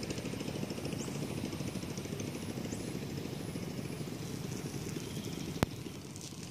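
An engine running steadily with a rapid low chugging, and a single sharp click about five and a half seconds in.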